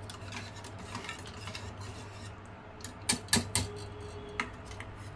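Wire whisk stirring a thin sattu-and-water mixture in a stainless steel pot, its wires clicking and scraping against the sides, with three sharper clinks about three seconds in.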